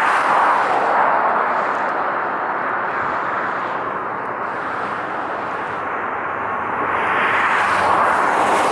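Boeing 777-200ER's twin GE90 jet engines at take-off thrust as the airliner lifts off and climbs out: a loud, steady jet noise that eases slightly midway and swells again near the end, when a thin steady whine comes in.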